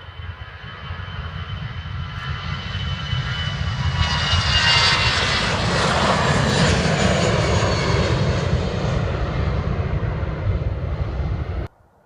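Airliner's engines growing louder as it passes close by, with a high whine that falls slightly in pitch. The sound cuts off abruptly near the end.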